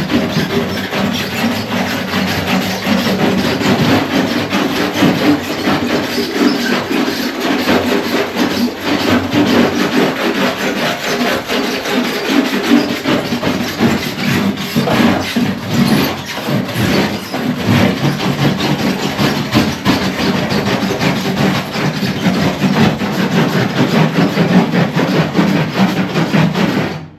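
Hand wire brush scrubbed back and forth over a car's painted steel body panel, a continuous harsh scraping that stops abruptly near the end. The paint is being scratched up to key it for chemical paint stripper.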